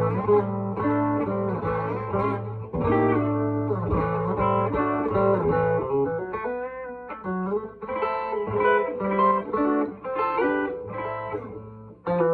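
c.1954 Gibson Les Paul Junior, a solid-body electric guitar with a single P90 pickup, played straight into an amplifier with single notes and chords in a bluesy style, the notes thinning out briefly around the middle.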